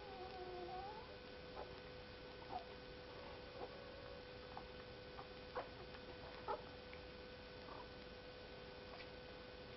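Newborn litter squeaking while nursing: one drawn-out, wavering squeal at the start, then short faint squeaks every second or so, over a steady electrical hum.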